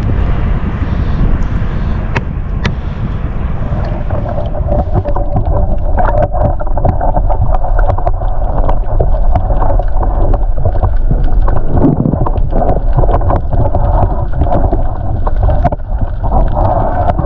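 Wind rumbling on the microphone at sea, with water sloshing and small splashes. From about four seconds in, a steadier mid-pitched whirring with many small clicks joins.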